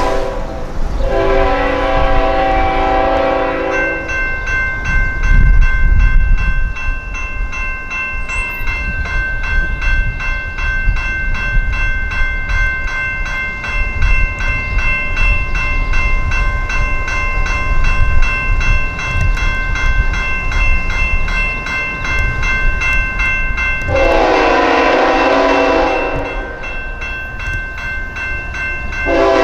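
General Signal Type 2 electronic crossing bell ringing in rapid, even strokes while a train passes with a low rumble. The train's horn sounds a long chord about a second in and another near the end.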